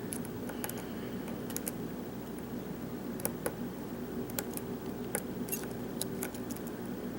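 Light, irregular clicks of a short hook lifting and probing the pins of a Sargent-keyway pin tumbler lock under tension, with a steady low hum underneath.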